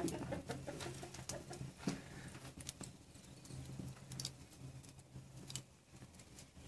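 Sausages cooking on a grill grate over an open flame: faint, scattered crackles and pops at irregular intervals.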